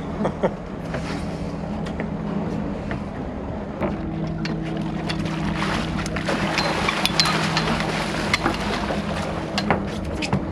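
Boat engine running with a steady low hum, and a hooked king salmon splashing and thrashing at the surface beside the boat from about four seconds in, with scattered sharp splashes.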